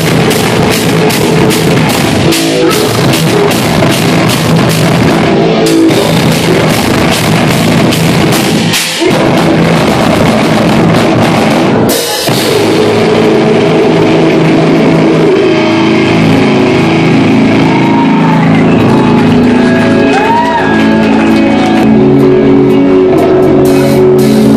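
Djent band playing live and loud: heavy distorted guitars over dense, busy drumming. About halfway through the drums drop back, leaving ringing guitar chords with a few sliding notes.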